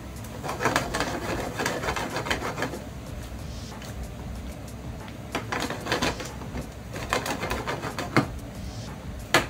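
Spaghettini being stirred and tossed in a creamy sauce in a frying pan: a wooden utensil scraping and knocking against the pan and the pan being shaken over a gas burner, in bursts of a second or two with a sharp knock near the end.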